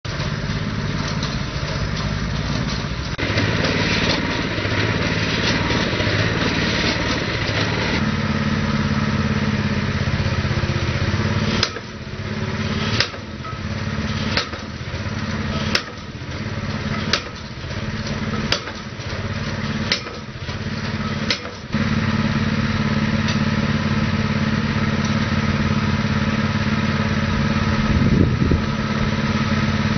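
Predator 212cc single-cylinder petrol engine running a cable tool percussion drill rig. From about 12 s to 21 s, a drive weight strikes the top of the 200 mm PVC well casing about eight times, roughly once every 1.4 s, as the temporary casing is driven into the ground; the engine dips briefly at each stroke.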